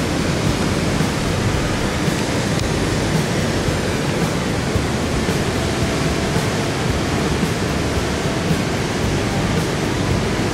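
Steady, loud rush of turbulent water churning through a dam's tailwater outflow.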